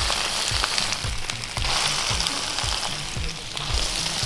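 Ground meat sizzling on a hot flat-top griddle, pressed flat under two cast-iron burger presses, with the hiss swelling and easing in stretches. Background music with a steady low beat runs underneath.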